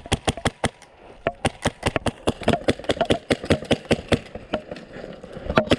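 Classic Army DT4 airsoft rifle on HPA with an Inferno engine laying down covering fire: rapid, unevenly spaced shots, several a second, with a short pause about a second in.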